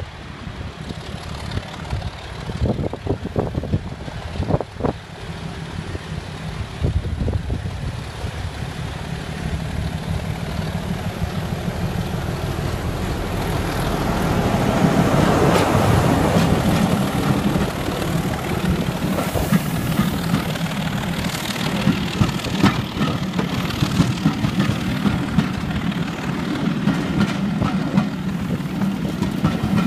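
BR Class 25 diesel locomotive D7628 and its Sulzer six-cylinder engine pulling hard on the climb, growing louder as it approaches and passes about halfway through. The coaches then roll by with repeated clicks of their wheels over the rail joints.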